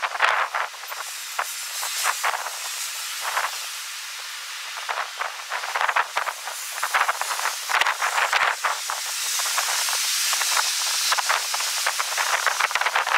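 Strong wind rushing as a dense hiss, broken by many rapid crackling gusts, with steadier stretches of hiss a few seconds in and again past the middle.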